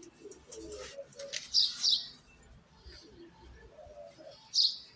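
Small birds chirping: short, sharp high calls, loudest about a second and a half to two seconds in and again near the end, with softer low cooing between them.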